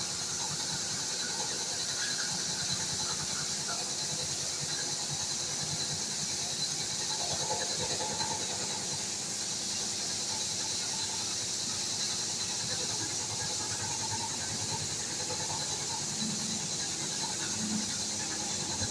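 HAAS CNC machine running with a 3900 LZ9 cylinder head set up in it: a steady high hiss over a low mechanical rumble, with faint squeaks now and then.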